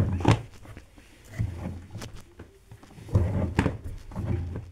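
Laundry being pulled out of a front-loading washing machine's drum by hand: irregular soft thumps and rustling of the wet fabric, with a few small clicks.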